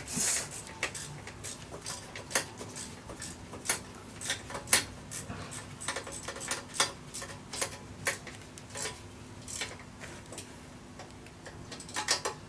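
Irregular sharp metallic clicks and taps of hand tools at work on a Honda Dio scooter's muffler mounting, a few each second, with a quick cluster near the end.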